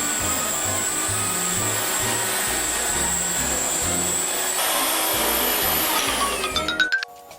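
An electric power tool runs loudly with a steady high whine over background music, then its motor winds down with a falling pitch and stops about seven seconds in.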